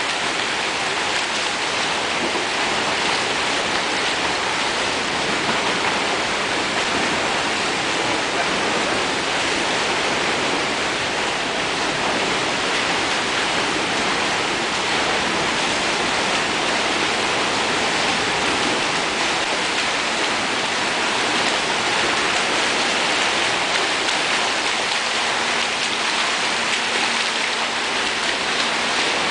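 Steady splashing and churning of water from swimmers stroking through an indoor pool, an even rushing wash with no break. A faint low steady hum joins it near the end.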